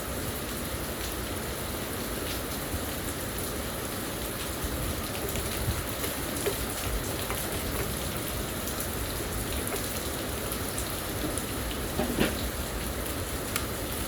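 Steady hiss of rain, with a few light clicks and taps; the sharpest comes about twelve seconds in.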